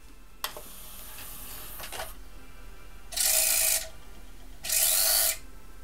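Sony CDP-X55ES CD player: a click, then the disc tray motor drawing the tray in, then two loud, harsh scratching bursts about a second apart as the disc starts spinning. The scratching is the player's fault.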